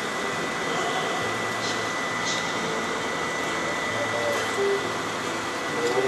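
Steady hum and hiss of a fishing boat at sea, with a thin, steady high whine running through it. Faint voices sit in the background.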